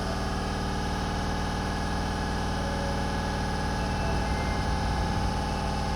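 Osaka Metro subway train at the platform, a steady mechanical hum with a constant whine.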